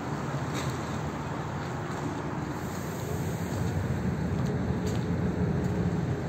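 Steady low rumble of a river boat's engine running under way, with water and wind noise, heard from on board; it grows a little louder about halfway through.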